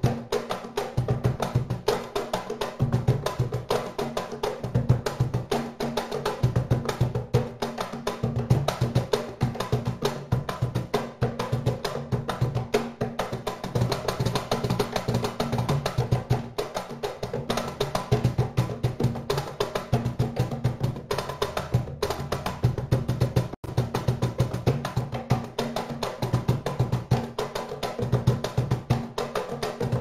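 Two wooden A Tempo Percusión cajones played by hand together, a continuous rhythmic duet of deep bass tones and sharp slaps.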